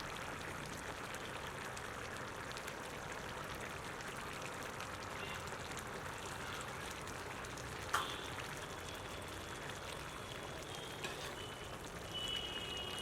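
Chicken kuzhambu cooking in a pan, a steady hissing bubble, with a single sharp knock about eight seconds in.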